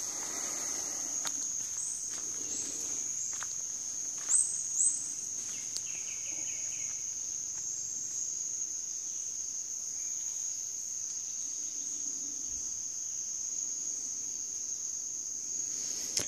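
Rainforest insects droning steadily on one unbroken high note, with a few short, high chirps over it. The loudest two chirps come about four and a half seconds in.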